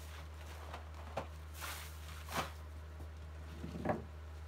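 Brief rustles and handling noises from plastic-wrapped chocolate packs being moved about and put into a cardboard box, with a louder burst of handling near the end, over a steady low hum.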